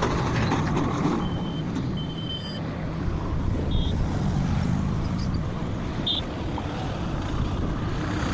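Heavy construction machinery's diesel engine running steadily, a low rumble, with a few short high-pitched beeps scattered through it.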